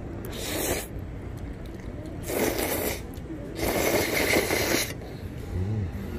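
A person slurping creamy carbonara pasta, three short noisy slurps, the last the longest.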